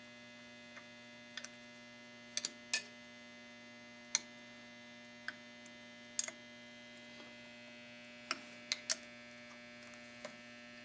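Steady electrical hum with a dozen or so short, sharp clicks at irregular intervals: a hand tool working screws tight through the adapter plate into the handle arms of the quilting machine.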